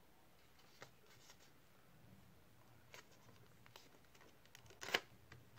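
Paper being folded and creased by hand: a few faint rustles and clicks, then a louder crinkle near the end.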